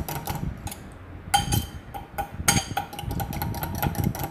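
Metal fork beating beaten egg with milk in a bowl: a quick run of clinking taps of the fork against the bowl, which thins briefly about a second in and then picks up again.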